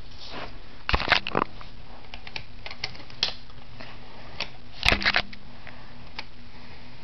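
Clicks and knocks of toy model cars being picked up and moved on carpet, with two louder clattering clusters about a second in and near five seconds and lighter ticks between, over a steady low hum.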